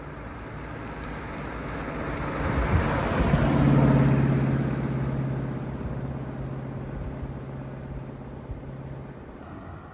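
1933 Auburn Boattail Speedster's Lycoming straight-eight engine running as the car drives past. It grows to its loudest as it goes by about four seconds in, then fades as it pulls away.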